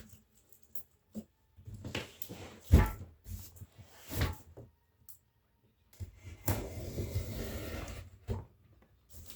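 A cardboard shipping box and its packing being handled and pulled open: scattered knocks and thumps, the loudest about three seconds in, then a couple of seconds of rustling and scraping from about six and a half seconds.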